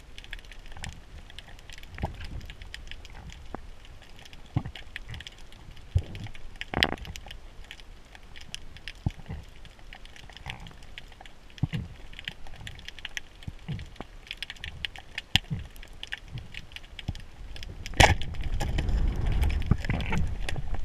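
Underwater crackling with scattered sharp clicks. About eighteen seconds in, a loud sharp crack as a speargun fires, followed by a few seconds of low rumbling turbulence.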